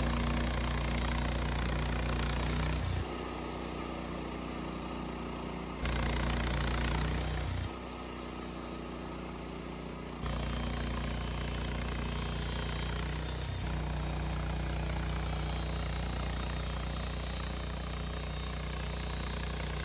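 Engine of a Wood-Mizer LT15 Start bandsaw mill running steadily with a rattle. The level and tone shift abruptly several times.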